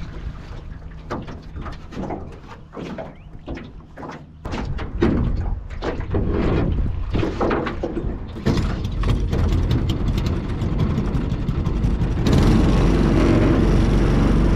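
Knocks and clatter in an aluminium jon boat, then the small pressure-washer gas engine of a homemade mud motor starting up; near the end it is running steadily and loudly.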